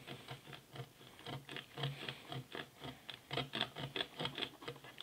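Serrated knife sawing through an electrical-taped braided rope on a wooden cutting board, in quick, even back-and-forth strokes, about five a second.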